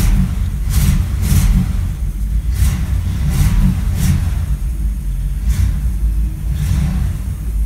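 A 1962 Cadillac's 390 cubic-inch V8 running just after a hard cold start, uneven and rising and falling under the throttle as it warms up, with sharp puffs about every half second or so.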